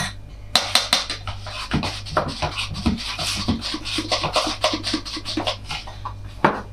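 A spoon stirring kefir dough in a bowl: quick irregular scraping and clicking of the spoon against the bowl.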